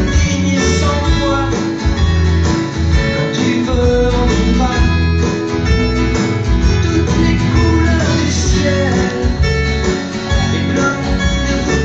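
Two acoustic guitars played together in a steady rhythm, strummed chords ringing on.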